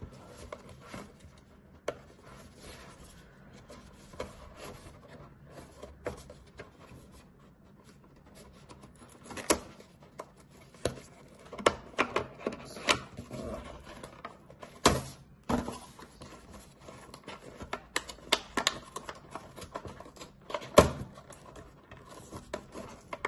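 Thin cardboard packaging being handled and pried open by hand: scraping, rustling and tearing of the card with scattered clicks and snaps, sparse at first and busier in the second half, with a few sharper knocks.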